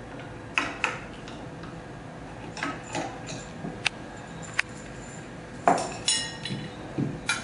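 Metal parts and tools of a heat press clinking and clacking as a platen attachment is unscrewed and set down: a series of separate clicks and knocks, the loudest a little under six seconds in.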